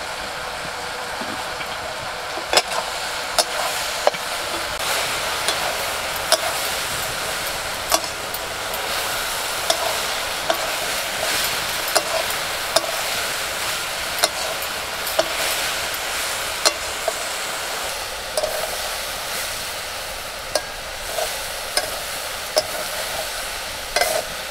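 Whole kul (Indian jujube) fruit sizzling as they fry in hot oil in a wok, a steady frying hiss, while being stirred, a metal spatula knocking against the pan now and then in scattered sharp clicks.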